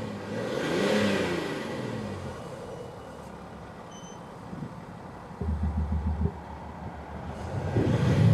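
Mercedes GLS X167 with a Panthera LEO MAGNA Sound Booster active exhaust, its speaker adding a synthetic V8-style note to the engine sound. The engine revs up and back down about a second in, gives a pulsing low burble a little past halfway, and starts another rev that builds near the end.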